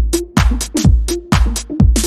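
Electronic dance music with a steady drum-machine kick drum, about two beats a second, and crisp hi-hat and snare hits between them.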